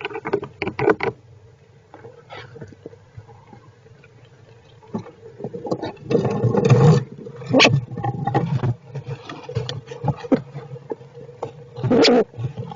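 Squirrels shifting and scratching at close range: irregular clicks and rustling, loudest in a rustling stretch about six seconds in and again in a short burst near the end.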